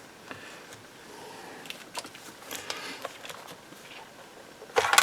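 Faint scattered clicks and scrapes of a robot vacuum's plastic housing being pried at with a spudger, then a loud, sharp plastic clack near the end.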